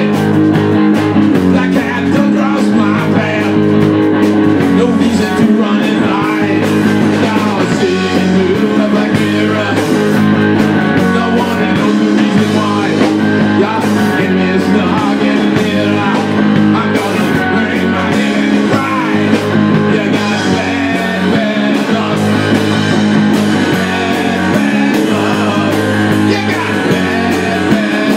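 Live rock band playing: electric guitars over a drum kit, continuous and loud.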